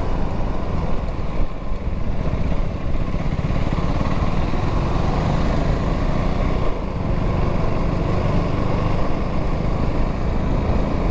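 KTM Duke 390's single-cylinder engine running while the bike is ridden, with wind and road noise. The level dips briefly about two seconds in and again around seven seconds.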